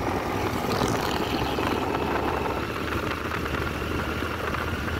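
A moving vehicle's engine and road noise: a steady low engine note under an even rushing noise.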